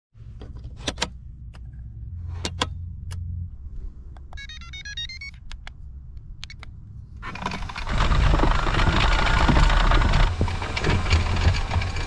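Homemade remote-control tracked wheelbarrow being switched on: several sharp clicks of its switch and remote, then a quick series of electronic beeps. About seven seconds in, its drive motor, roller chain and rubber tracks start running loudly and keep going.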